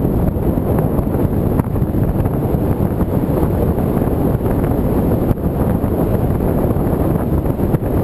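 Airflow rushing over the onboard camera's microphone on a radio-controlled glider in flight: a loud, steady, low buffeting wind noise.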